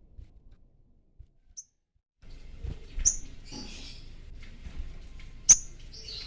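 Sogon (ruby-cheeked sunbird) giving short, high, sharp chirps, a male in breeding condition calling out to a rival. The sound nearly drops out for about a second early on, with one tiny chirp in the gap. Several chirps follow from about three seconds in, the loudest a little after five seconds.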